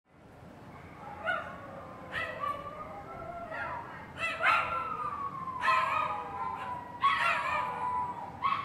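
A dog barking and howling: several sharp calls, each trailing into a long howl that slowly falls in pitch, growing louder as it goes on.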